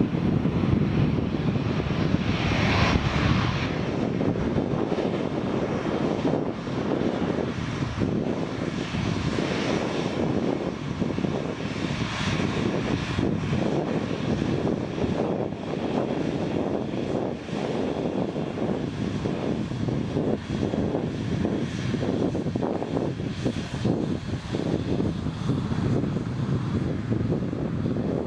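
Airbus A350-900's Rolls-Royce Trent XWB turbofans running at low taxi power as the airliner rolls slowly past close by: a steady rushing drone, with a brighter whine showing about two to four seconds in.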